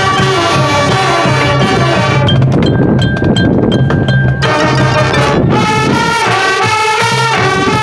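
High school marching band playing its field show: held brass chords over drums and percussion. Between about a third and halfway in the band thins to percussion strokes under one long high held note, then the full band comes back in with chords moving step by step.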